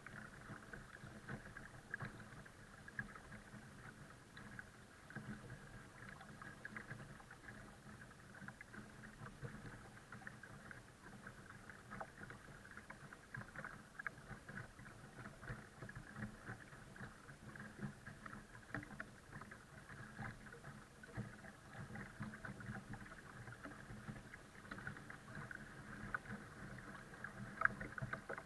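Water lapping and splashing against the hull of a folding kayak under tow: a steady, faint run of small splashes and trickles.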